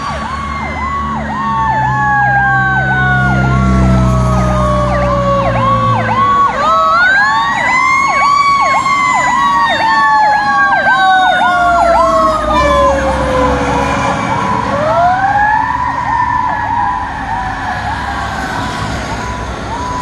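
Fire truck sirens: a fast, rapidly repeating yelp runs throughout, over a wailing siren that climbs quickly twice and winds down slowly in between, with heavy engine rumble in the first few seconds.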